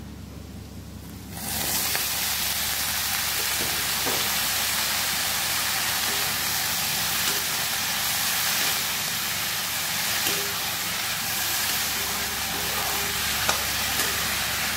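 Pumpkin leaves and stems dropped into hot oil in an iron kadhai, starting to sizzle suddenly about a second and a half in and sizzling steadily on while a spatula stirs them, with a few light taps of the spatula on the pan.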